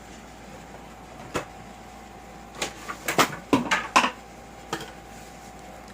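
Clicks and knocks from handling the action camera and its plastic packaging: one sharp click, then a quick run of clicks and taps about three to four seconds in, and one more near the end.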